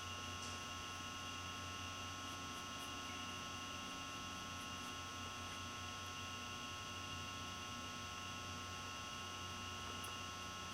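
Steady electrical hum with a faint high-pitched whine above it.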